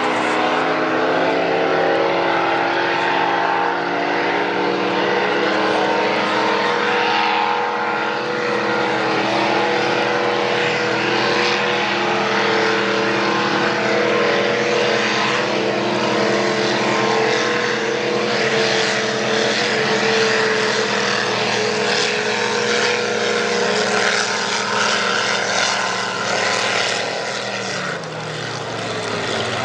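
Several racing boats' high-horsepower engines running flat out, a loud steady drone with more than one pitch at once that slowly shifts; near the end the pitch drops as the engines come off the throttle.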